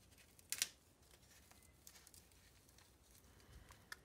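Handling noise from a foam packing block and a pair of small flush cutters as new microswitches are worked out of the foam: one short scraping rustle about half a second in, then only faint small ticks.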